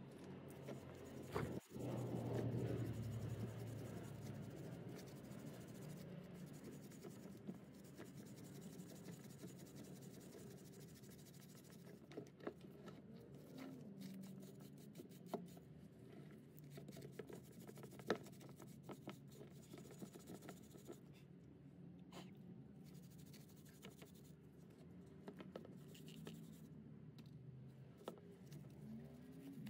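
Small wire brush scrubbing brake dust off a cast-iron brake caliper and bracket: faint, irregular scratching with occasional light clicks, a little louder about two seconds in.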